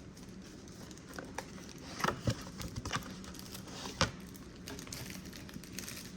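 Cardboard trading-card boxes being handled: a few light knocks and clicks, the sharpest about two seconds and four seconds in, over quiet room tone.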